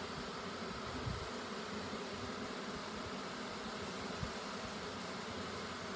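A swarm of honey bees buzzing steadily around an open hive as they are hived. Two brief soft bumps come through, about a second in and again a little after four seconds.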